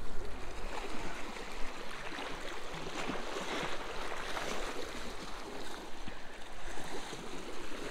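Small waves of Lake Superior washing and splashing against a rocky shoreline, a steady irregular wash of water.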